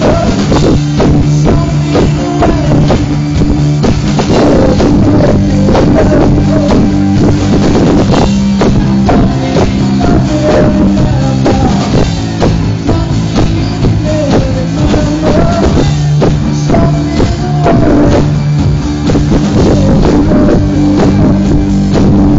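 Live rock band playing: drum kit, bass guitar and electric guitar, with a regular drum beat and a wavering melody line over it.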